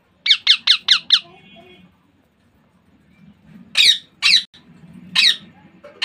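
Baby Indian ringneck (rose-ringed) parakeet calling: a quick run of five short, high-pitched squawks, each falling in pitch, then after a pause of about two seconds three more single squawks.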